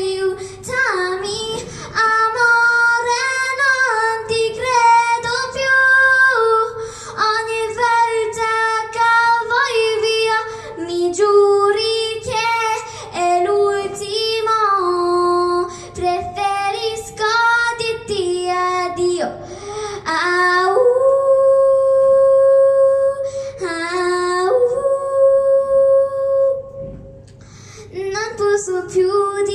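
A girl singing solo into a microphone, a melodic song with long held notes past the middle.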